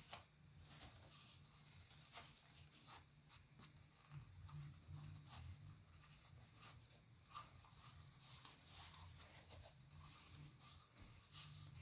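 Near silence: faint rustling and crinkling of toilet paper being handled, in scattered short ticks over a low hum.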